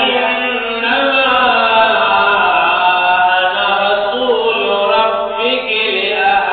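Melodic vocal chanting: a voice singing long, held notes that glide up and down, in the manner of a religious recitation.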